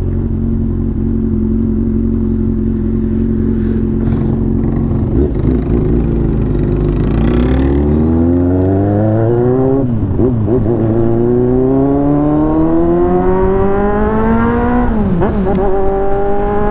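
Motorcycle engine idling steadily, then pulling away and revving up through the gears: the pitch climbs, drops sharply at an upshift about ten seconds in, climbs again, and drops at a second upshift near the end.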